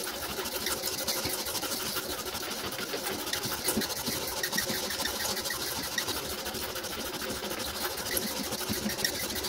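Hand file rasping in long back-and-forth strokes across a pair of straight-razor scales held in a bench vise, filing them flat and symmetrical.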